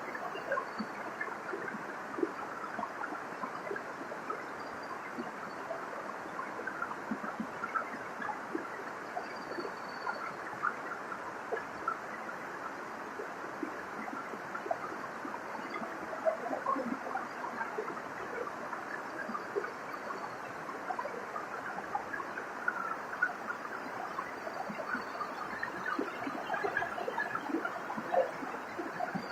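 Waterfall: water falling and splashing in a steady rush full of small splashes, with faint high bird chirps now and then.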